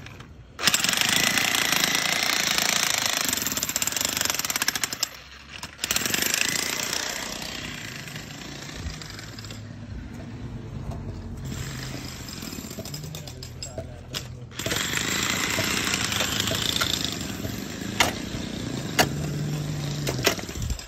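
A jackhammer-type breaker hammering on a construction site. The noise stops abruptly and starts again several times where the clips cut, and there are a few sharp knocks near the end.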